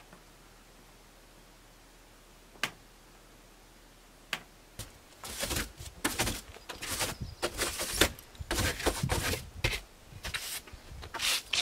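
A few single sharp clicks a couple of seconds apart, then from about five seconds in a busy, irregular run of rustling and knocking handling noise, louder than the clicks.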